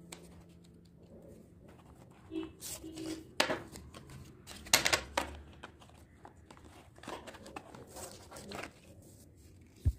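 Hands handling paper and plastic items: irregular rustling and crinkling with a few sharp clicks and taps, the loudest about a third of the way in and about halfway through.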